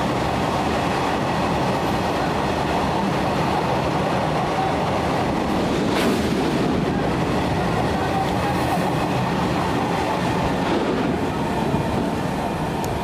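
Freight train of open-top steel wagons rolling past close by: a steady rumble of wheels on the rails. A single sharp knock comes about six seconds in.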